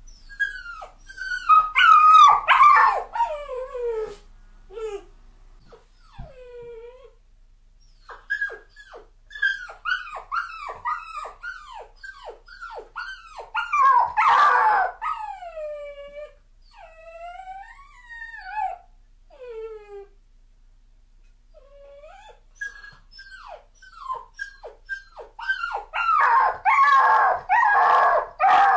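A puppy crying: bouts of short, high whimpers and whines, each dropping in pitch, with a short lull about two-thirds of the way through and louder, denser crying near the end. It is the distress crying of a puppy left alone for the first time, not a cry of pain.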